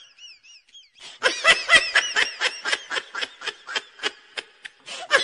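High-pitched laughter: a run of quick laughing bursts, about four a second, that tails off toward the end.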